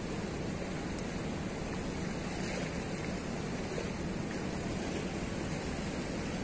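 Steady rushing of fast, turbulent river water released below a weir, an even unbroken roar of flow.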